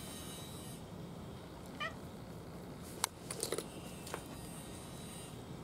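A cat eating dry kibble from a plastic tray. One short, high meow comes about two seconds in, then a few sharp crunches and clicks a second or two later.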